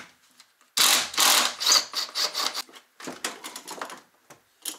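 Tools and metal and plastic parts clattering and clicking while the car battery is being swapped in the engine bay: a dense rattling burst about a second in, then a string of smaller clicks and knocks.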